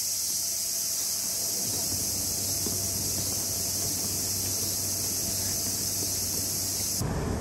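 A loud chorus of cicadas making a steady, dense high-pitched drone over a low hum; it cuts off shortly before the end.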